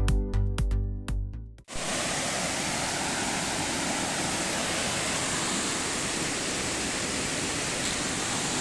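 Electronic background music with a beat cuts off abruptly under two seconds in, giving way to the steady, even rush of a waterfall.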